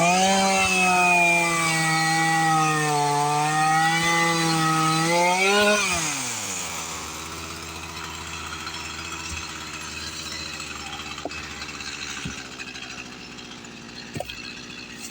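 Two-stroke chainsaw at full throttle cutting wood, its pitch sagging and wavering under load. About six seconds in it revs up sharply as it comes free, then drops back to a steady, quieter idle.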